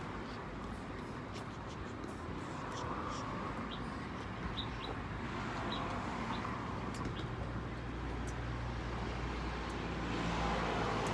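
Road traffic and the steady low hum of a vehicle under way, with a few short high chirps in the first half and a slight swell in loudness near the end.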